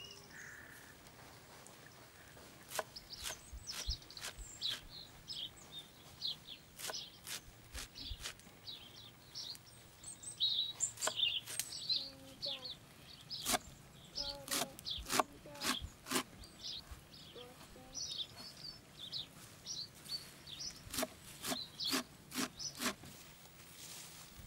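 A knife chopping fresh herbs on a wooden board, giving sharp, irregular knocks in quick clusters. Birds chirp in the background through much of it.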